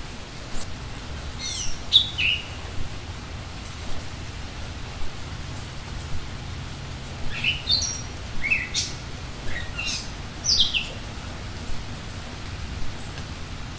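Small songbirds chirping: a few quick downward-sweeping chirps about two seconds in, then a cluster of them later on. Under them runs a steady hiss with scattered light taps.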